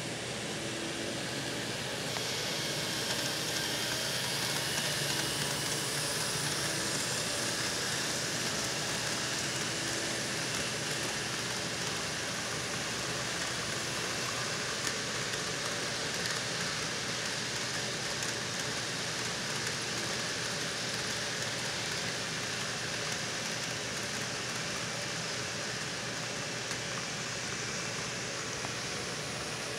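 Model freight train running by on its layout: a steady rolling rumble and hiss of wheels on the track and the locomotives' motors, easing off slightly toward the end.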